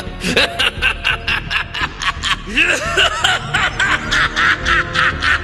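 Goku Black's evil laugh in the English dub: a man's voice laughing in a rapid, unbroken string of ha-ha-ha pulses, about five a second, with a low music bed underneath.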